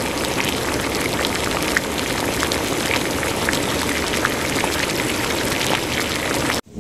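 Water heating in a stainless steel pot on the stove, a steady hiss full of small bubble pops as it comes to a boil; it cuts off suddenly near the end.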